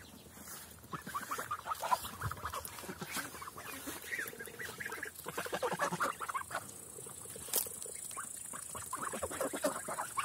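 Young Linda geese feeding together on a zucchini: rapid wet pecking and bill-smacking in quick clusters, with soft goose calls now and then.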